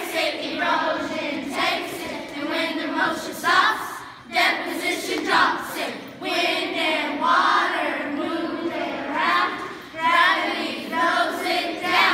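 A large group of children singing a song together in unison, in phrases of a few seconds with short breaks between them.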